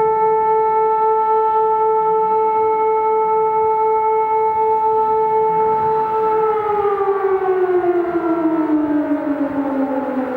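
Civil defence siren sounding a loud, steady wail; about six seconds in its pitch begins to fall slowly, dropping by about an octave.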